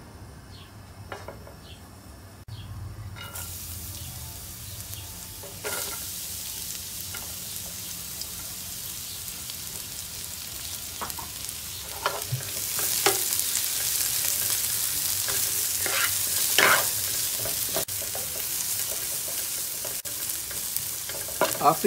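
Sliced bitter melon and minced garlic sizzling in hot sesame oil in a skillet, stirred with a wooden spatula that knocks against the pan a few times. The sizzle starts a few seconds in and grows louder about halfway through.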